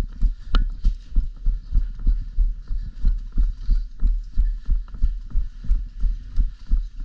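Running footsteps heard through a body-worn camera: heavy, even thuds about two and a half a second. There is a short sharp click about half a second in.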